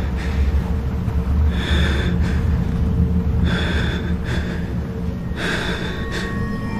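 A man breathing heavily, three long breaths a second or two apart, over a steady low rumbling drone.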